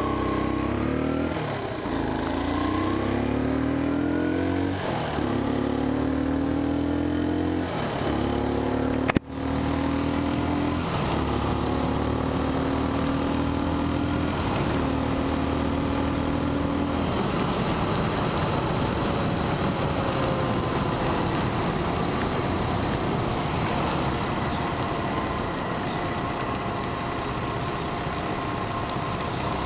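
Motorcycle engine accelerating through the gears, its pitch climbing and dropping back at each shift over the first seventeen seconds or so, then settling into a steady cruise with a rush of wind and wet-road noise. A sharp click with a momentary drop in sound about nine seconds in.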